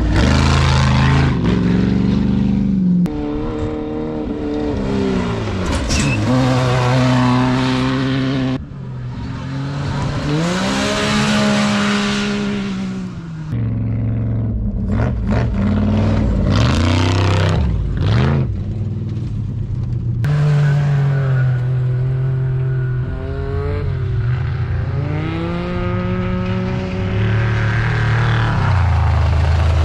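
Off-road desert race vehicles running hard past the camera, one after another, their engines revving up and dropping back through gear changes, with a rush of tyre and dirt noise.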